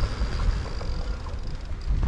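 Yeti SB150 mountain bike rolling over a dirt trail, its tyres crunching and rumbling on the dust, with wind rumbling on the microphone.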